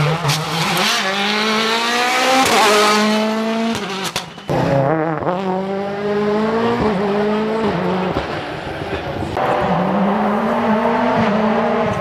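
Rally car engines revving hard at full throttle, the pitch climbing and dropping back at each upshift. About four and a half seconds in the sound breaks off and a second car is heard accelerating the same way.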